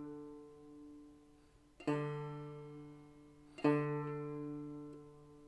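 Open fourth string of a 1979 Epiphone banjo plucked twice, about two seconds in and again nearly two seconds later, each note ringing out and fading, while the string is being tuned to D.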